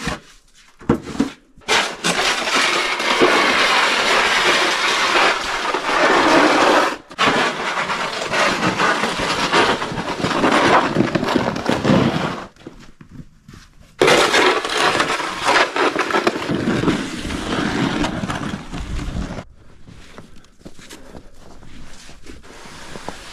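Snow shovel scraping along a concrete driveway as it pushes snow, in three long passes of several seconds each. Near the end there is quieter brushing as snow is knocked off a pickup truck.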